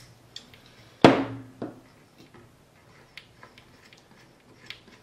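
A spray can of contact cleaner set down with a solid knock about a second in, then a lighter knock. Faint scattered clicks and rubs follow as fingers work the potentiometers on the circuit board back and forth.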